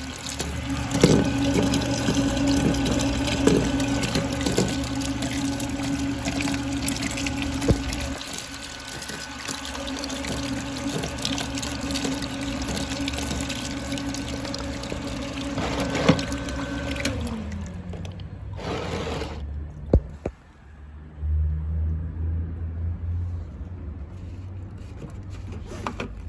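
Panasonic YX-09KGC1 welding-machine water cooler running, its pump and fan humming steadily with the sound of coolant circulating. About two-thirds of the way through it is switched off and the hum slides down in pitch as the motor winds down, leaving a lower hum and a few clicks.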